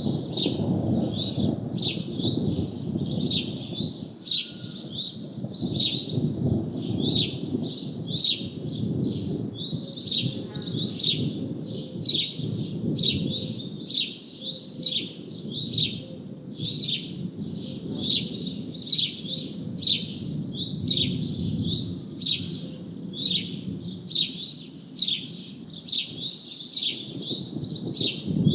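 Bird chirping over and over, about two short sharp calls a second, over a low continuous rumble.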